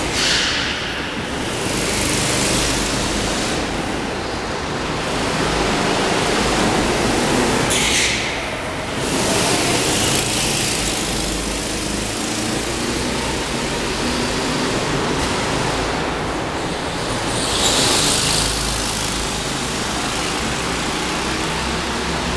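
Go-kart engines running as karts lap an indoor track, a steady noisy drone echoing through a large concrete hall, with brief hissy high-pitched surges about 8 and 18 seconds in.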